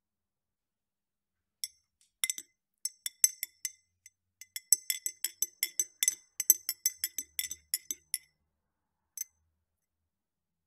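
Metal spoon stirring in a ribbed drinking glass of liquid, clinking against the glass: a quick run of bright, ringing clinks, several a second, starting about a second and a half in and stopping after about six and a half seconds, then one last clink.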